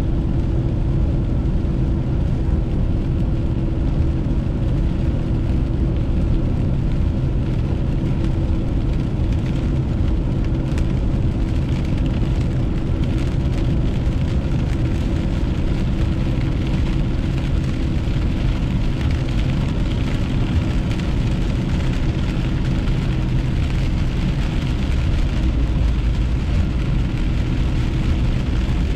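Steady drone of a car driving, heard inside the cabin: engine and tyre noise with a steady hum, and rain on the windshield.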